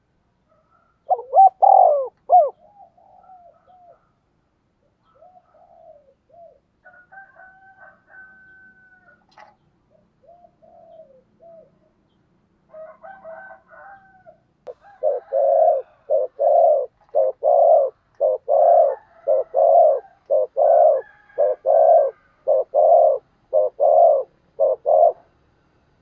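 Spotted dove cooing. There are a few loud coos about a second in and fainter calls after them. From about fifteen seconds a long, even run of short coos follows at about two a second, the rapid bowing coo ('gù') that decoy doves give to draw wild doves into answering.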